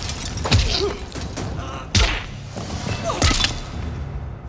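Action-film soundtrack: music under a scuffle, with about three hard thuds, the strongest about two seconds in.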